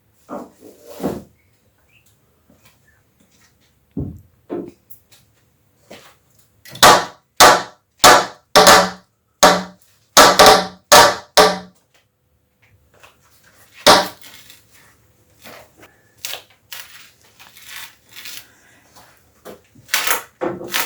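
Hammer striking a chisel to knock an old wooden door frame loose. There are a few knocks, then a loud run of about ten sharp blows at roughly two a second, one more hard strike, and then lighter knocks.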